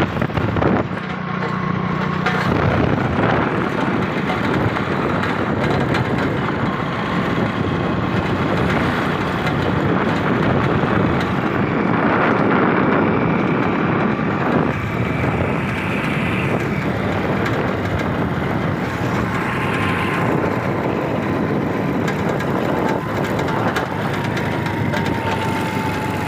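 Steady road traffic noise, a dense rumble and hiss from passing vehicles, with a few faint drawn-out tones in the second half.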